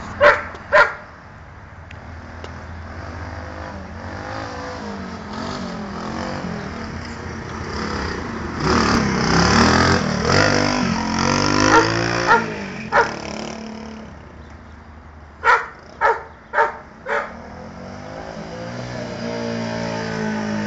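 Small single-cylinder engine of a Honda Monkey-style minibike running and revving as it rides by, its pitch rising and falling and loudest around the middle. Short sharp sounds cut in twice at the start, twice a little past the middle, and four times in quick succession about half a second apart after that.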